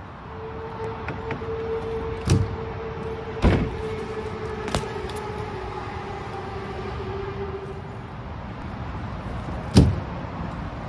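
BMX bike rolling over skatepark concrete with a steady hum that slowly sinks in pitch, broken by a few sharp knocks. Near the end comes a loud impact as the bike lands up on the box.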